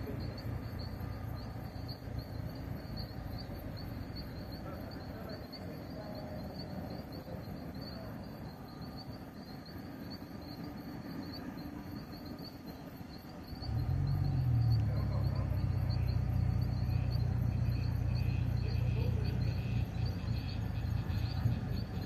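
Insects chirping in a high, evenly pulsing trill over a low background rumble. Just past halfway a steady low hum sets in and becomes the loudest sound.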